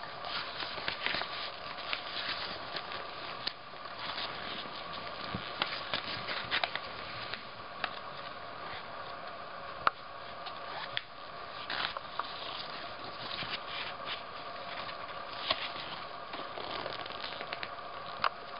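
Paper pages of a thick instruction booklet rustling and crinkling as a baby turns and handles them, with irregular small crackles and flaps.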